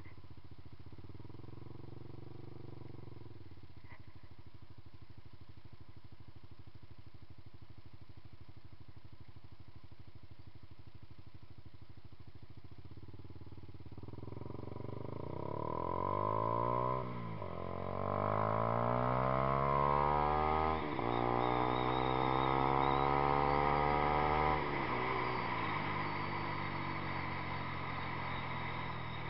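Yamaha YZF-R15's single-cylinder engine, fitted with a Two Brothers Racing exhaust, idling steadily. About halfway through, it revs up and pulls away, rising in pitch through the gears with two quick gear changes. Near the end it eases off to a steadier cruise.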